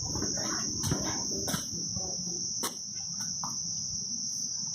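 A steady, high-pitched insect trill, unbroken throughout, with a few soft knocks underneath.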